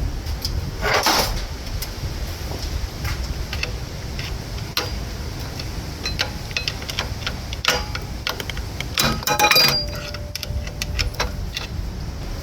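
Scattered metallic clicks and clinks of hand tools and engine parts being handled, loudest about a second in, with a cluster of ringing clinks near the end, over a steady low rumble.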